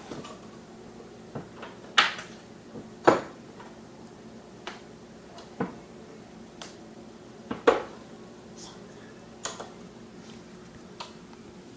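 Scattered clatters and knocks of pans, dishes and utensils being handled, the loudest about two, three and eight seconds in, over a steady faint hum.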